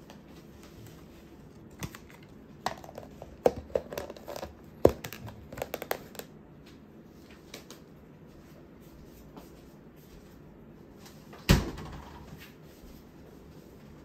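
A hard plastic food tub knocking and clicking on a wooden table top, in a quick run of small knocks, then one loud knock later on.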